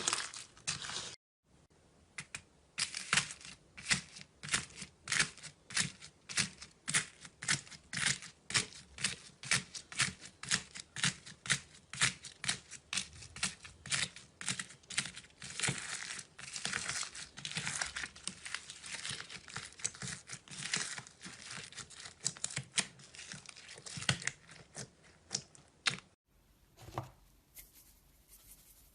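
Knife blade cutting into a bar of soap: a long run of short, crisp scraping cuts, about two a second, with a brief cut to silence about a second in and a change of clip near the end.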